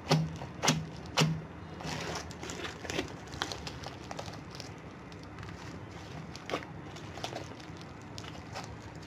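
Thick blue slime full of foam beads being poked and stretched by hand: three sharp pops in the first second or so as fingers press in, then irregular crunchy crackling and clicking as it is pulled apart.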